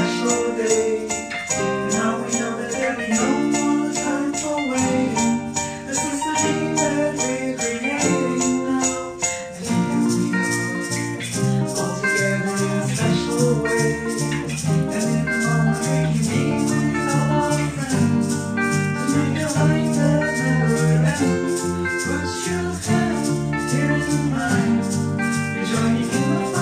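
Upbeat pop song with a steady shaker rhythm over bass and melodic instruments. About ten seconds in, the arrangement fills out with a stronger bass.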